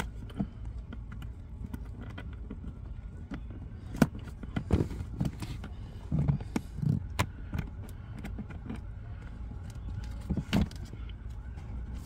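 Scattered light plastic clicks and knocks from a Mercedes GLC300's footwell trim and a sensor's wiring connector being handled and plugged in beneath the dashboard, over a steady low hum.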